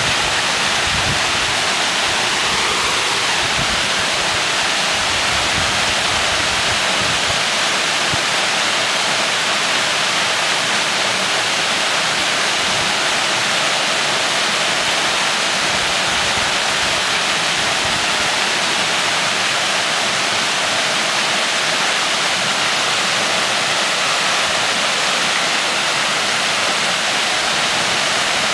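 Brook waterfall pouring into a plunge pool: a steady, even rush of falling water.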